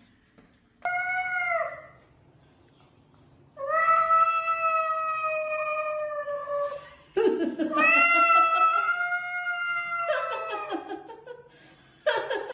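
Domestic cat yowling at another cat in a face-off: a short yowl, then two long, drawn-out yowls, the last turning rougher near the end.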